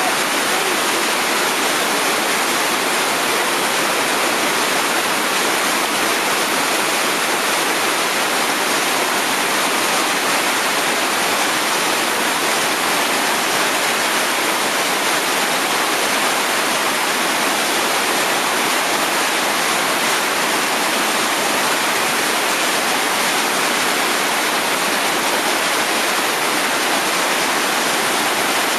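Whitewater rapid rushing steadily, an even, unbroken noise of churning river water pouring through a hole.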